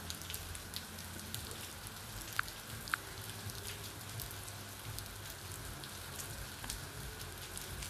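Faint background noise between words: a steady hiss with scattered small crackles over a low hum, and two faint ticks about two and a half and three seconds in.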